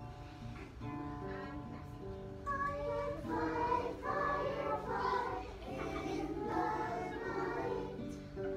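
A group of young children singing a simple folk song together, accompanied by a plucked guitar. The guitar plays alone for about the first two and a half seconds before the voices come in.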